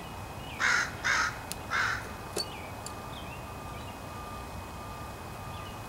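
A crow cawing three times, harsh calls a little over half a second apart in the first two seconds.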